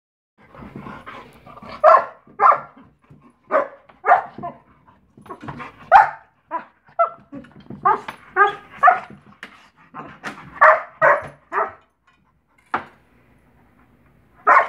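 Saint Bernard barking and yipping in quick, loud, sharp bursts at a cat during a play fight, with a short lull near the end before the barking starts again.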